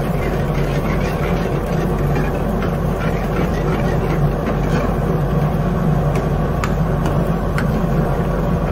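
Steady low mechanical hum of commercial kitchen equipment, with a few light clicks scattered through it.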